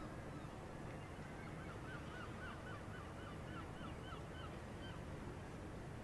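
Herring-type gull calling a quick string of short yelping notes, three or four a second, starting about a second and a half in and stopping about five seconds in, faint over a steady low rumble.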